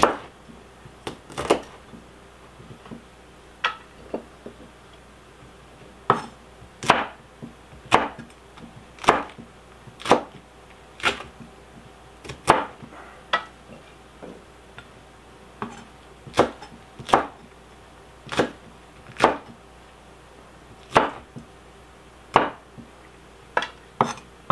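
Kitchen knife coarsely chopping green chili peppers on a wooden cutting board: slow, uneven knocks as the blade meets the board, roughly one a second with short pauses.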